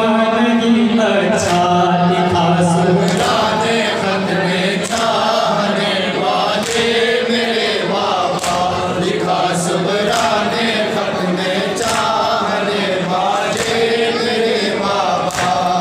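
A group of men chanting an Urdu noha in unison, a lead reciter on a microphone joined by a chorus, with sharp slaps about once a second that are the hand-on-chest beating of matam.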